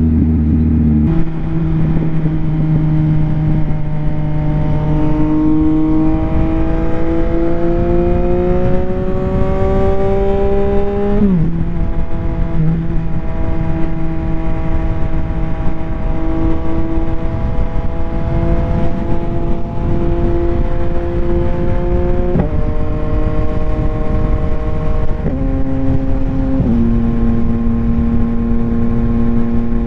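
2022 Yamaha XSR900's 890 cc inline-three engine with a Kelpi shorty aftermarket exhaust, pulling in gear with its pitch climbing slowly. The pitch drops sharply at a gear change about eleven seconds in, climbs again, steps up a little after twenty seconds and drops twice near the end. Wind rush over the helmet microphone runs underneath.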